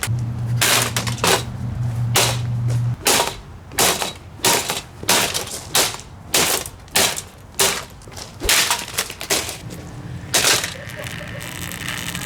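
A Pelonis box fan being smashed: a long run of hard blows, about two a second, that stop a little before the end. A steady low hum runs under the first few seconds.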